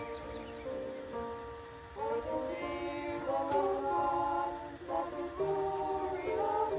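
Small women's choir singing unaccompanied in harmony, with held notes that change every second or so.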